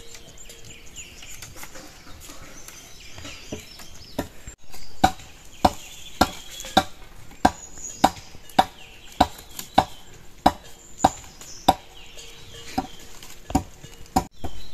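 Steady chopping: sharp, evenly spaced strokes a little under two a second, starting about a third of the way in after a brief scuffling noise. Bird calls chirp faintly over it.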